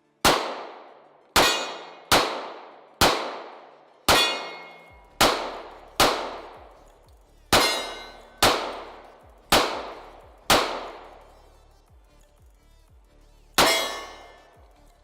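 Twelve sharp metallic clangs at an uneven pace, about one a second with a pause before the last. Each rings out for about a second, typical of rounds striking a steel target.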